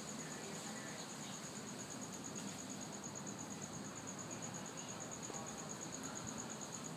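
An insect trilling steadily: a high, thin tone in rapid, even pulses, several a second, that does not stop.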